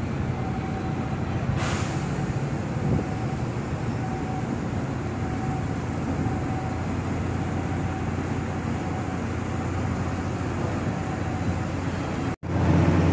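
Steady low mechanical rumble and hum of container-terminal machinery and engines, with a faint steady whine over it for part of the time; the sound drops out for an instant near the end.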